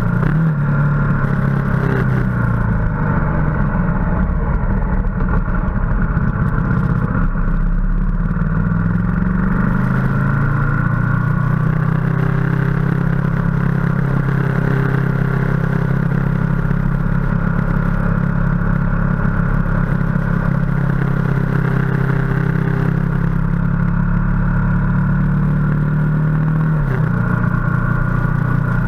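Ducati motorcycle engine running under way, heard from the bike itself. Its pitch falls and climbs again twice in the first ten seconds, then holds steady at cruising speed, with a change of pitch near the end.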